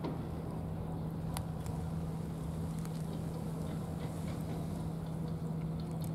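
A cat eating canned wet food from a dish, with faint short chewing and licking clicks over a steady low hum.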